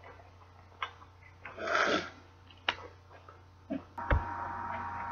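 Small clicks and taps of makeup cases and brushes being handled and set down, with a short burst of rustling noise about two seconds in. A low thump comes about four seconds in, and after it a steady hum.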